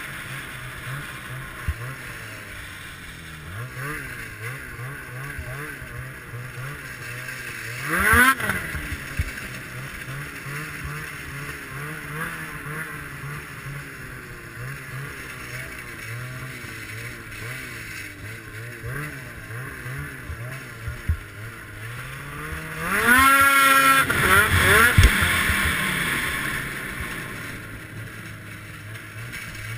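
2014 Ski-Doo Summit X snowmobile's two-stroke engine running at low speed under a wavering throttle. It revs up sharply twice: briefly about a quarter of the way in, and longer and louder about three quarters of the way in, then winds back down.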